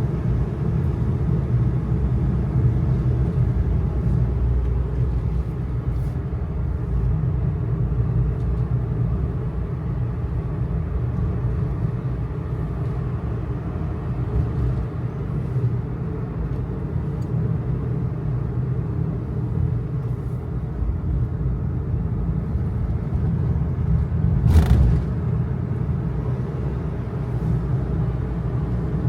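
Kei truck driving along a mountain road: steady low engine and road rumble. A single sharp knock about three-quarters of the way through.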